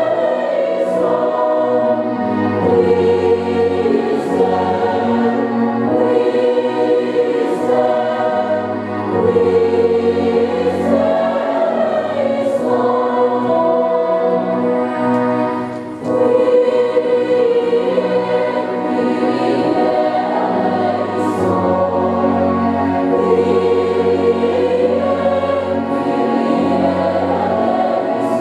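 A church choir of mixed young voices singing a sung Mass setting in unison and harmony, over held low notes that change every couple of seconds. The singing dips briefly about halfway through, then carries on.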